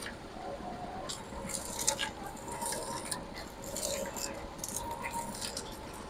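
Prakash 'Table Top 3' electric sugarcane juice machine running, its rollers crushing a sugarcane stalk with irregular crackles and snaps over a steady hum.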